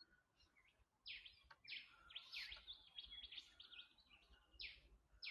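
Faint birdsong: a run of quick, high notes that sweep downward, starting about a second in, with a few short thin whistles among them.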